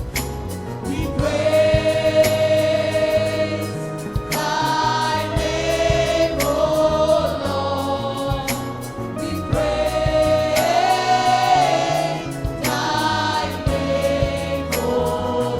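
Gospel choir singing a praise song in sustained sung phrases, over a moving bass line and a steady beat.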